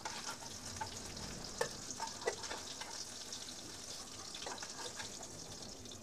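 Fish slices sizzling in shallow oil in a frying pan: a steady high hiss with scattered small pops, and a few light clicks and scrapes of a metal spatula against the pan as the fried pieces are lifted out.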